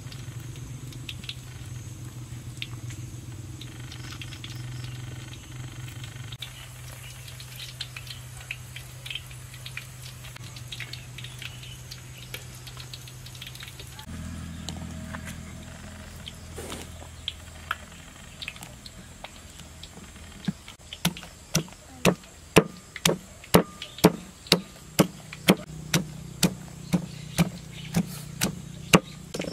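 Wooden pestle pounding in a wooden mortar, steady strokes about twice a second, starting about two-thirds of the way in. Before that, a low steady hum with scattered light clicks.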